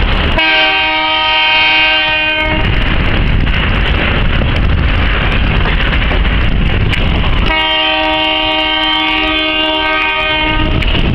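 Wisconsin & Southern freight train rolling past with steady wheel noise from the cars on the rails. The locomotive's multi-tone air horn sounds two long blasts, one just after the start and a longer one about seven and a half seconds in.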